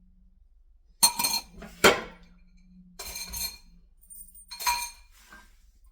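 A metal spoon clinking and scraping against a dish as the last of the cake is scooped out, four ringing knocks with the second the sharpest.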